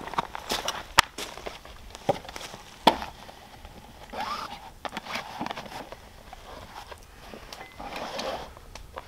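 A few sharp knocks as things are set down on a wooden board, then the rustle of a brown sack being worked open by hand, in two bouts.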